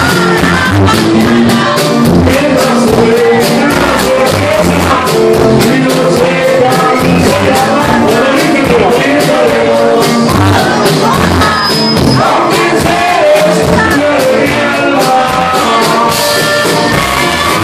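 Live norteño band with saxophone, accordion and drums playing a loud, steady tune.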